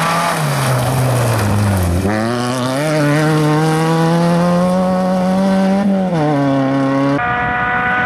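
Suzuki Swift rally car's engine, revs falling as it slows into a corner, then climbing sharply as it accelerates out and holding high, with a quick drop in revs about six seconds in. Near the end it switches abruptly to another rally car's engine, a Ford Fiesta, running at steady revs as it approaches.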